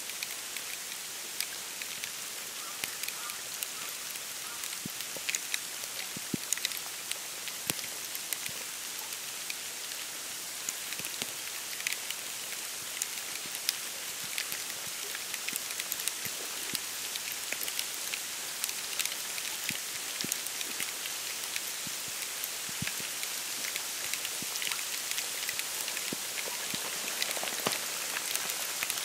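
Wet snow falling and pattering on dry reeds and bare branches: a steady soft hiss with many small scattered ticks.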